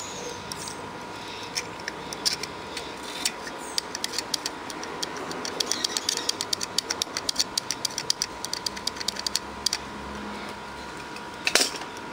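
Run of small sharp clicks and scratches, several a second and densest in the middle, from a bridge rectifier on a small circuit board being handled and worked at by hand, with one louder clatter near the end.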